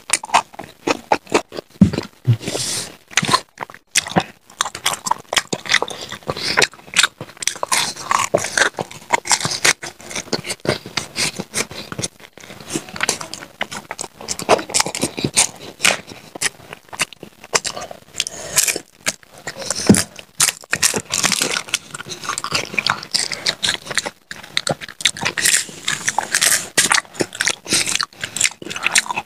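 Close-miked crunching and chewing of crisp fried snacks such as papad and pakoras, two eaters biting and munching. Irregular crisp crunches follow one another throughout with no pause.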